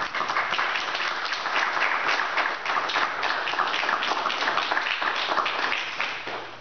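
Guests applauding, a dense patter of many hands clapping that starts at once, holds steady and dies away in the last second.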